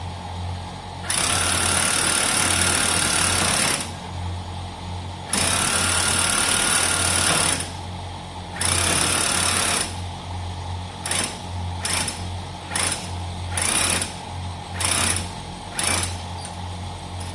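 Motorized spray washer: a steady electric motor or pump hum, with the spray gun firing in loud hissing bursts. There are three long bursts, then a run of short quick ones.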